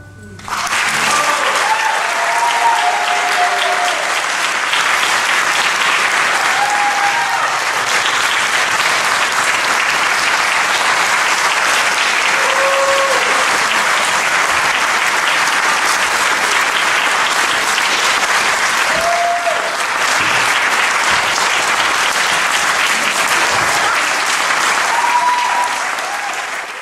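Audience applauding, the clapping starting about half a second in, just as the cello and piano music ends. A few short shouts from the crowd rise above it now and then.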